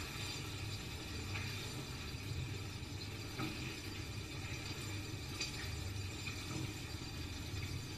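Silicone spatula stirring chicken pieces in a frying pan, with a few faint knocks against the pan, over a steady low rumble.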